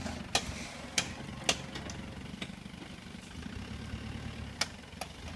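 A vehicle engine running at low revs with a steady low throb, with several sharp cracks over it.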